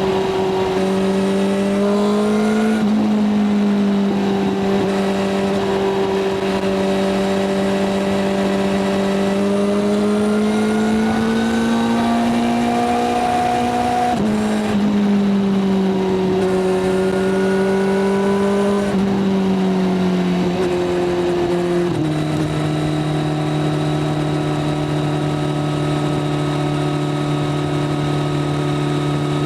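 Kawasaki Z900's inline-four engine pulling at highway speed, with wind rush. The pitch climbs as it accelerates, drops sharply about halfway through at a gear change, then steps down to a lower, steady pitch about two-thirds in.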